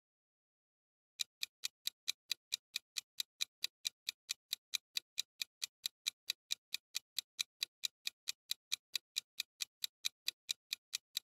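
Clock-ticking sound effect for a quiz countdown timer: a fast, even tick of about five ticks a second, starting about a second in.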